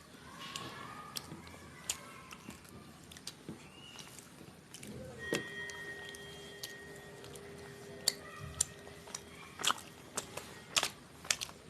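Soft close-up chewing of chhole and bhature, with scattered wet mouth and lip clicks.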